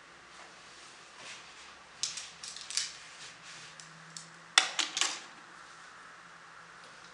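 Scattered sharp clicks and rustling handling noises, one cluster about two seconds in and a louder one about four and a half seconds in, over a faint steady hum.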